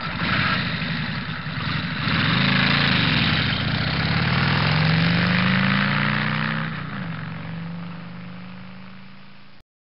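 An engine revving: its pitch climbs steadily for several seconds, drops back sharply about seven seconds in, then holds as the sound fades, and it cuts off abruptly near the end.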